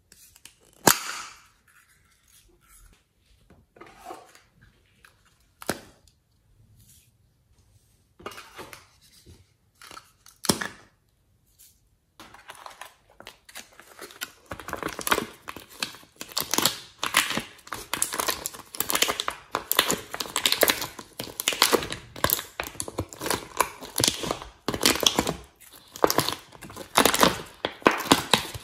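Sparse clicks and handling noises from a small plastic container, with one loud click about a second in. From about halfway there is a dense run of crinkling and crackling as a thin plastic slime tray is flexed and its cells squeezed to push the slime out.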